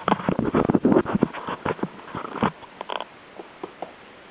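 Bolognese puppies' claws clicking and scrabbling on a hard kitchen floor as they slip about: a dense patter of clicks for the first two and a half seconds, then scattered clicks.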